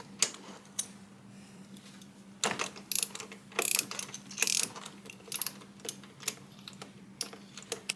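Socket ratchet clicking in short, uneven strokes, starting about two and a half seconds in, as a spark plug is worked loose from the engine.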